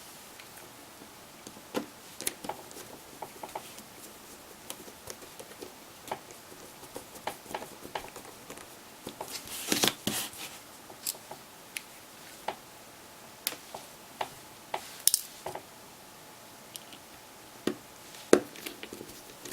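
Scattered sharp clicks and light taps of a small screwdriver and plastic phone parts being handled while a phone is put back together, with a short cluster of clicks about halfway through.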